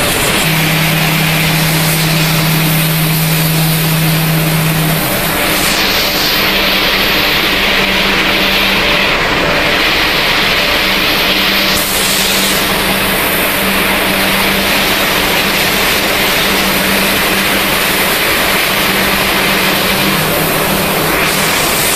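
Machinery of a snack pellet production line running: a loud, steady mechanical drone with a low hum underneath, from the dryer and the vibrating tray conveyor carrying corn-ring pellets.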